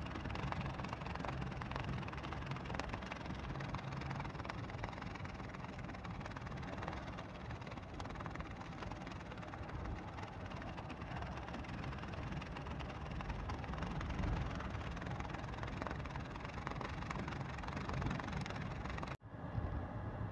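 Steady engine and road rumble inside the cabin of a moving passenger van, with a low hum, briefly cutting out near the end.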